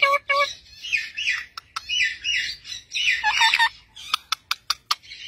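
Rose-ringed parakeets calling: a rapid run of repeated chirps that stops about half a second in, then scratchy squawks and chirps, the begging calls of a parakeet chick being tended beak to beak by an adult. Several sharp clicks come near the end.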